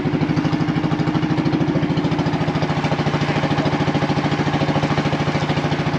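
Small motorboat's engine running steadily, with a fast, even throb.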